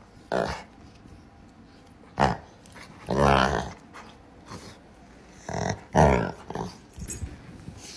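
Golden retriever giving a string of short play growls and grumbles while rolling on its back, about eight in all, the longest and loudest about three seconds in.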